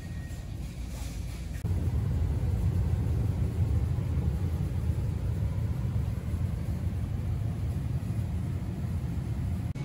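Steady low rumble of store background noise, which gets louder and holds steady from about two seconds in.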